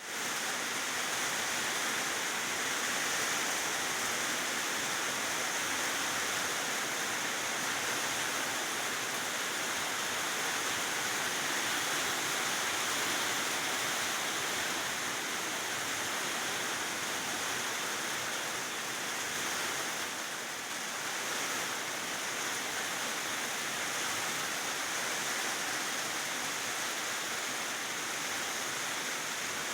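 Rain falling steadily, an even hiss with no breaks, easing slightly for a moment about two-thirds of the way through.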